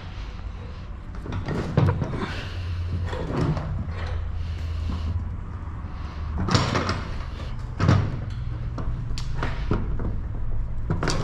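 Workshop handling sounds: several scattered knocks and clatters of tools being set down and picked up on the motorcycle engine and bench, over a steady low hum.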